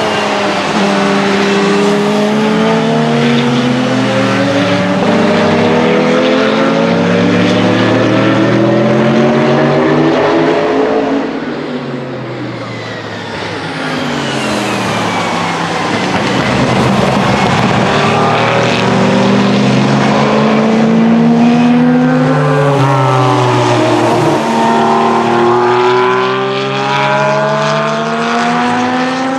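Several racing cars accelerating past, their engines climbing in pitch through each gear and dropping at every upshift, with more than one car's engine heard at once; the sound eases briefly about twelve seconds in before the next cars come through.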